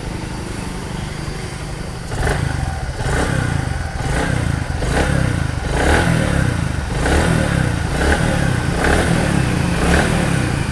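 Bajaj Platina 100's single-cylinder four-stroke engine idling, then blipped on the throttle about once a second. It has just been fitted with new piston rings and runs without any knock or noise from inside.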